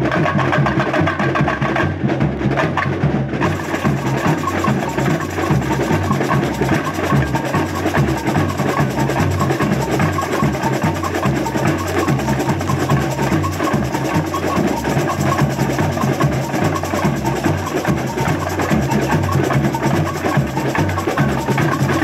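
Samba bateria playing live: a steady samba groove of deep bass-drum beats under snare drums and sharp woodblock-like hand percussion.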